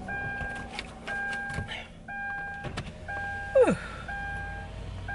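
A car's electronic warning chime repeating about once a second, a short steady two-note tone each time. About three and a half seconds in there is one short falling vocal sound.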